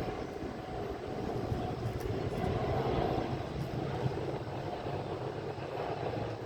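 Jet airliner engines heard at a distance as a plane moves on or near the runway: a steady low rumble that swells slightly about halfway through.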